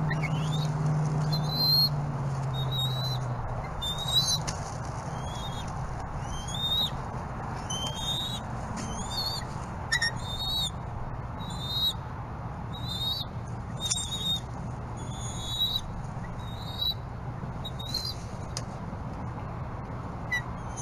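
A bird calling a short, high, bending note over and over, about once a second, over a steady low hum that is louder for the first few seconds.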